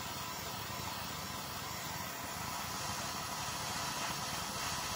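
Hose-fed blowtorch flame hissing steadily as it heats a titanium razor handle, growing slightly louder near the end.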